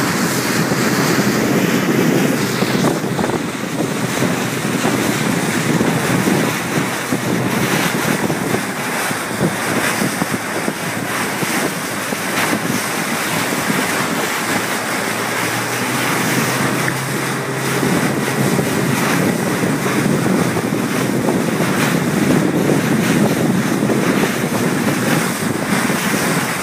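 Wind buffeting the microphone over the steady rush and splash of water past a boat moving fast through choppy water.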